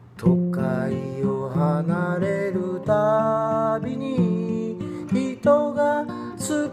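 Steel-string acoustic guitar played as song accompaniment, with strummed chords and picked notes changing every second or so, and a voice singing over it.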